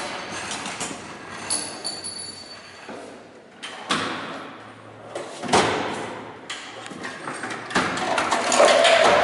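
Handling noise of cables and tools on a metal tool chest: several separate knocks and clatters, with a longer, louder rustling noise near the end.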